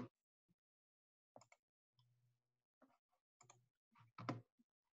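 Near silence: room tone with a few faint, brief clicks.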